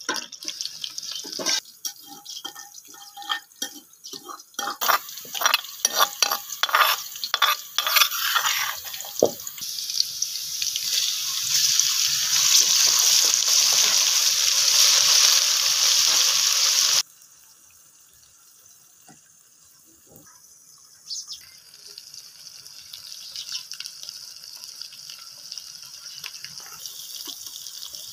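A metal ladle stirring and clinking in an aluminium pot of sliced onions frying in oil, with many quick knocks. Then comes a loud, steady sizzle that grows louder and cuts off suddenly a little past halfway. A much softer sizzle follows, with occasional light clicks.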